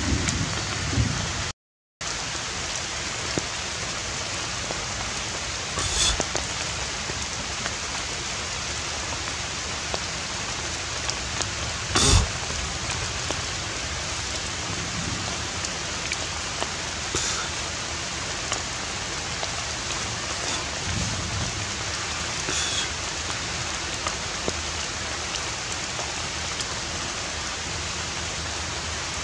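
Steady hiss of rain, cutting out completely for a moment about two seconds in, with a few scattered sharp taps, the loudest about twelve seconds in.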